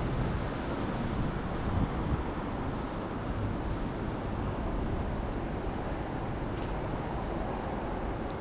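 Steady city street noise of road traffic going by, a low rumble with no single vehicle standing out.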